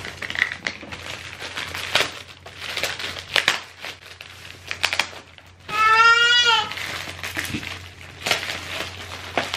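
A clear plastic bag holding swim gear crinkling and rustling as it is handled, in a string of short crackles. About six seconds in, a child's voice gives one brief high call.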